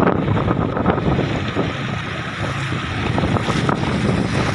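Wind buffeting the microphone on a moving motorcycle, over the steady running of its engine.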